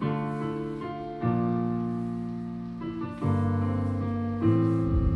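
Slow piano chords, a new chord struck four times, roughly every second and a half, each left to ring and fade.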